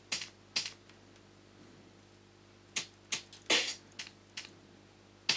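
Computer keyboard keys tapped: about ten short, irregular clicks in two small clusters, with a pause of about two seconds between them.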